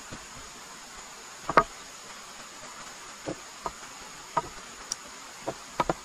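Wooden knocks as short cut log pieces are set down and shifted against each other on a log frame, about eight irregular knocks with the loudest about a second and a half in. A steady high insect drone runs underneath.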